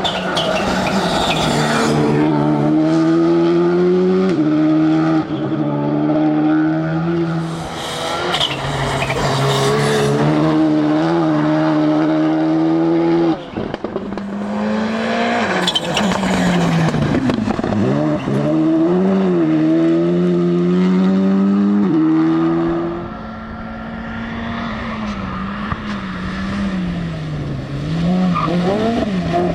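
Rally cars driven hard, engines revving up and dropping back through gear changes, in several passes one after another.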